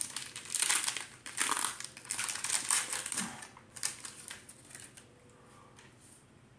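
Crinkling of a Pokémon card booster pack's wrapper being opened, in a run of rustling bursts that stops about four and a half seconds in.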